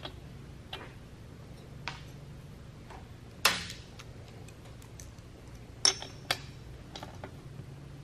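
Hand tools handled on a chainsaw and bench: scattered light clicks and metal clinks, a louder clatter about three and a half seconds in, and two sharp ringing metallic clinks near six seconds, as a socket and ratchet are picked up and set on the spark plug.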